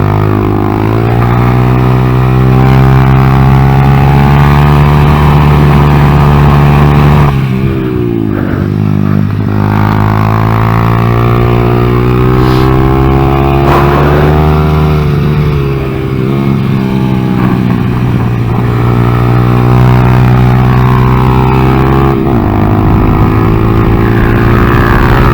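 2014 Honda Grom's 125cc single-cylinder four-stroke engine running hard around a track, its revs dropping sharply and climbing back up three times as it slows for corners and accelerates out. The ECU has not yet been reset to relearn the mix of old and new sensors after the engine swap, and the owner says the engine ran poorly in this state.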